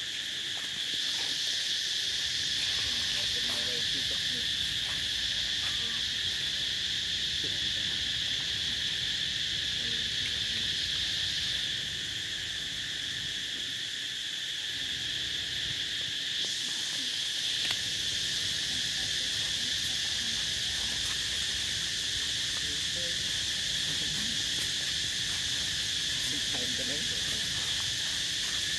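Steady chorus of insects calling, a continuous high-pitched buzzing drone. A second, higher layer of the chorus drops out for a few seconds in the middle and then comes back.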